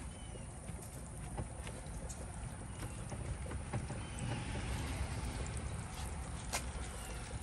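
Gloved hands pressing and patting raw gar fish patties in flour on a sheet pan, with faint soft taps over a steady low rumble.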